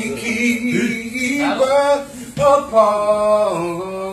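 A man singing solo a cappella, drawing out long held notes and sliding between pitches, with a short break a little past the middle before another long held note.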